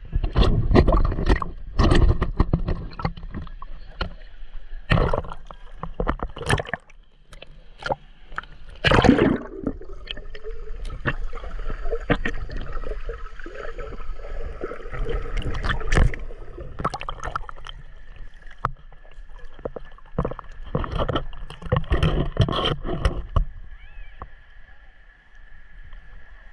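Sea water splashing and sloshing right at a handheld camera as it dips in and out of the water, in irregular loud splashes, with muffled gurgling while it is underwater.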